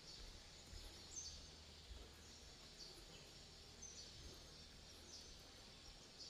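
Near silence with faint, short, high bird chirps repeating about once a second over a low background hiss.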